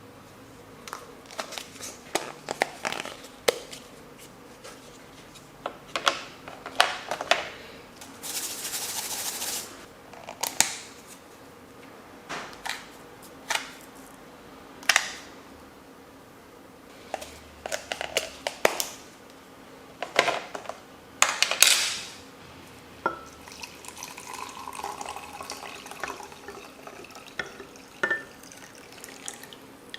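Instant coffee being made in a cup: sharp clinks and knocks of a spoon, cup and containers, and a pour lasting about a second and a half about eight seconds in. Near the end comes a quieter stretch of light ringing clinks.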